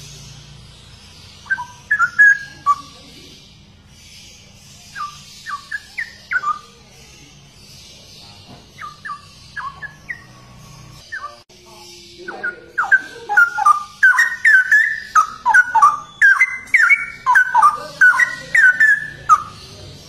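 Straw-headed bulbul (cucak rowo) singing: short rich warbled phrases at first, then, from about halfway, a long loud run of rapid bubbling phrases.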